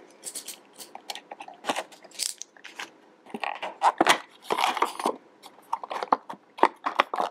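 Stiff clear plastic packaging being handled and opened: irregular crackles, clicks and crinkles, with the card insert scraping as it is slid out of the box.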